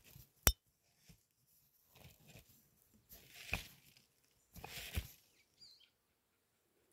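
Light handling noises: one sharp click about half a second in, then a few soft rustling, brushing sounds around the middle.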